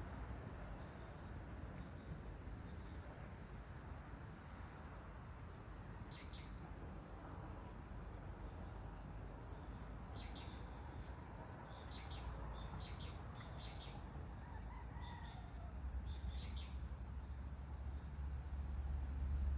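Evening outdoor ambience: a faint rooster crowing, scattered short bird chirps and a steady high insect drone over a low rumble that grows louder near the end.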